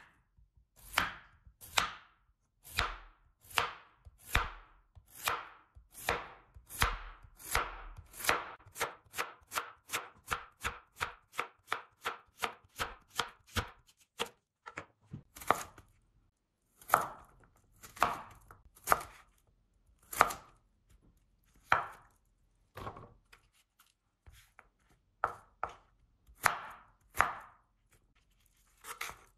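Knife slicing a zucchini into rounds on a wooden cutting board, each cut ending in a crisp tap on the board. The strokes come about once a second, quicken to about two a second midway, then slow and grow uneven.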